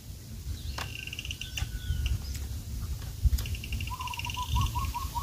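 Small birds calling: a rapid high trill about a second in and again just past three seconds, then a run of about ten short rising notes near the end. A low rumble and a few sharp clicks lie underneath.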